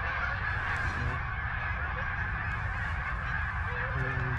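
A flock of Canada geese honking, many calls blending into a continuous chorus with a few nearer single honks standing out, over a steady low rumble.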